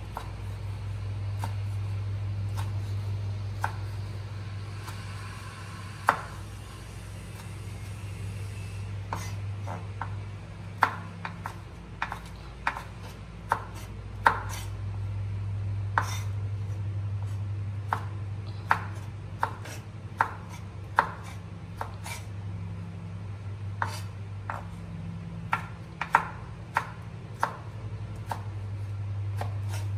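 Chef's knife dicing tomato on a wooden cutting board: irregular sharp knocks of the blade against the board, few at first, then about one or two a second from about ten seconds in. A steady low hum runs underneath.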